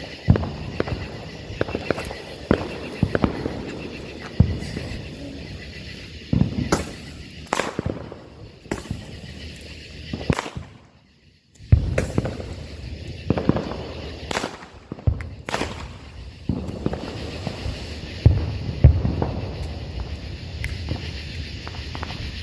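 Small consumer fireworks going off: a run of sharp pops and crackles at irregular intervals. It breaks off for about a second halfway through, then carries on.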